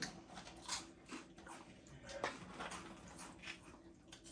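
People chewing mouthfuls of crunchy cheese balls, with scattered soft crunches and wet mouth sounds at irregular moments.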